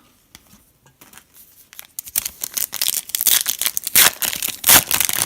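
A trading card pack wrapper being torn open and crinkled by hand. It starts about two seconds in after a quiet stretch, and the crackling goes on to the end.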